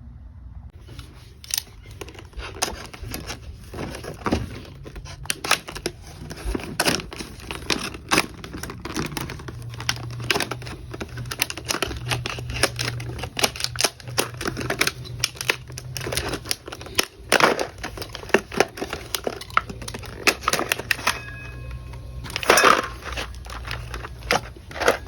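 Plastic packaging of a hole saw kit crinkling and rustling as it is handled and opened, with many small clicks and knocks and a louder rustle near the end.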